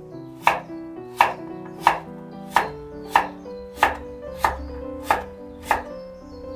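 Chef's knife slicing daikon radish on a wooden cutting board: a steady run of sharp chops, about one every two-thirds of a second, nine in all.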